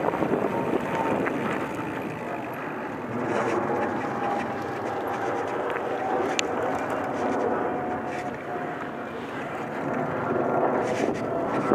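Bicycle rolling fast along a dirt forest trail: steady tyre noise over the ground, mixed with wind rushing over a helmet-mounted microphone.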